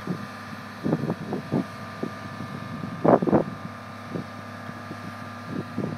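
Mobile crane's engine running steadily as it lifts a modular home section, a constant hum with fixed tones. Gusts of wind buffet the microphone about a second in and more strongly about three seconds in.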